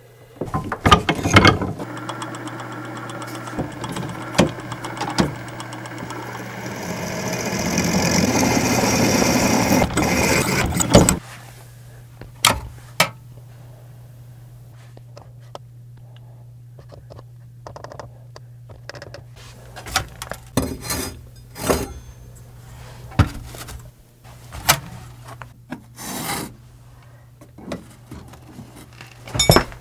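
A hand file rasping across a damascus steel tanto blade clamped in a bench vise, swelling before it stops abruptly about eleven seconds in. After that come scattered clicks and knocks over a steady low hum.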